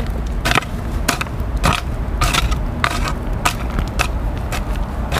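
A hoe chopping and scraping into loose dirt in a steady rhythm, about one stroke every 0.6 seconds, as earth is pulled in behind a log retaining wall.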